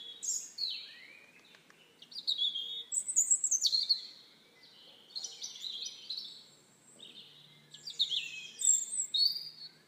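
Small birds singing: bursts of quick high chirps and falling whistled notes, in about four phrases with short pauses between.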